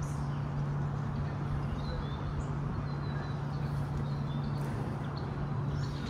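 Steady rushing outdoor background noise with a few faint, short bird chirps.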